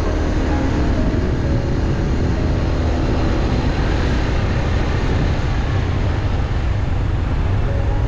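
Motorcycle riding at steady speed: wind rushing over the microphone, with the engine's steady drone underneath.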